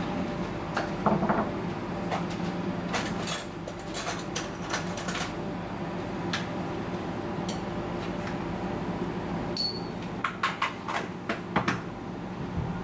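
Kitchen background: a steady hum of running equipment with scattered light clicks and knocks of utensils and dishes, a few about a second in, a run a few seconds in, and a cluster near the end.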